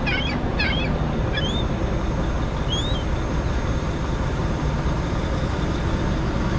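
Gulls calling: a quick run of sharp calls that stops about a second in, then two single rising calls. Under them runs the steady rumble of an idling diesel truck engine.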